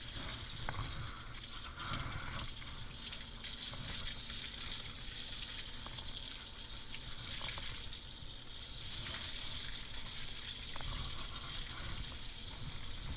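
Recirculating dog-bathing system spraying soapy water from a hose nozzle into a wet, lathered coat: a steady hiss of spray and running water.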